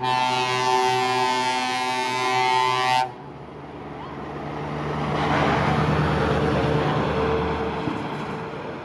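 Truck air horn blowing one steady multi-note chord for about three seconds, then cutting off sharply. A heavy truck then drives past, its engine and tyre noise swelling and fading away.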